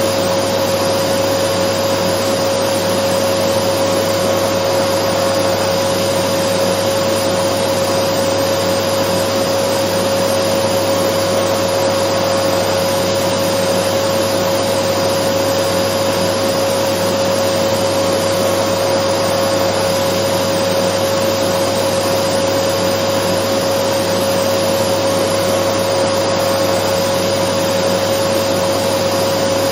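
Dyson vacuum cleaner running steadily: an unbroken rushing hiss with a steady hum held at one pitch.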